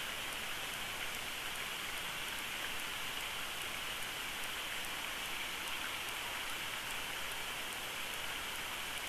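Steady, even outdoor hiss picked up by the eagle nest camera's microphone, with no distinct sounds standing out.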